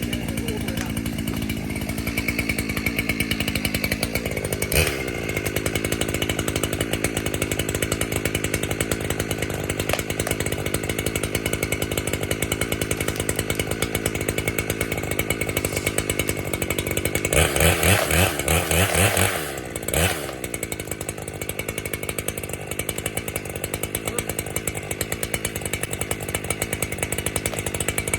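Two-stroke chainsaw running steadily at a low, even engine note, then revved hard a few times in quick succession for a couple of seconds near the two-thirds mark before settling back.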